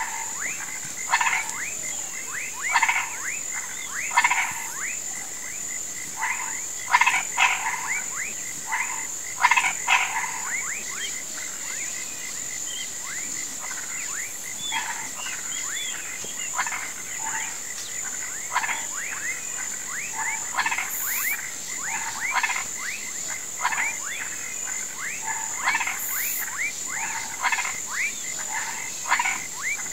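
A chorus of frogs and toads calling in a flooded marsh: many short calls overlap, each rising in pitch, coming in bursts that are loudest and densest in the first third. Under them runs a steady high-pitched drone.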